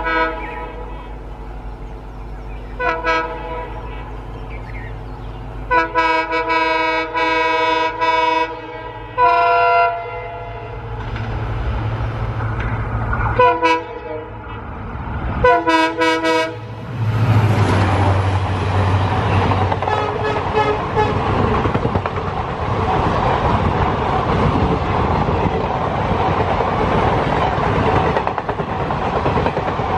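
Indian Railways WDP-4 (EMD) diesel locomotive sounding its horn in a series of blasts as it approaches, the longest held for about three seconds, over the low drone of its engine. About halfway through, the locomotive passes close by and the long train of coaches follows with a steady rumble and clickety-clack of wheels over the rail joints.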